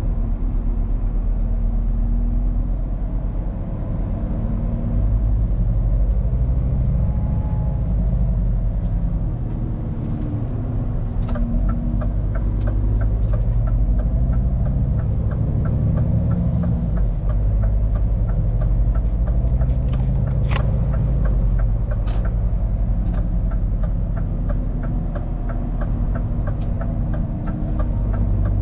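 Scania P410 truck's diesel engine running with road rumble, heard from inside the cab on the move. From about eleven seconds in, a regular ticking joins it at about three ticks a second, with two sharper clicks about two-thirds of the way through.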